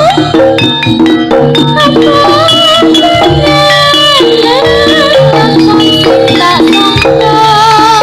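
Live Javanese jaranan music: an ensemble of pitched percussion and drums playing steady interlocking notes, with a wavering lead melody line above them.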